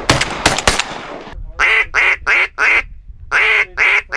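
Shotgun shots fired in quick succession in the first second, then a duck call blown in two series of evenly spaced quacks, four and then five.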